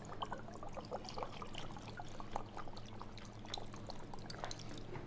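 Rice cooking wine poured from a bottle into a wok of water: a light trickle with many small splashes.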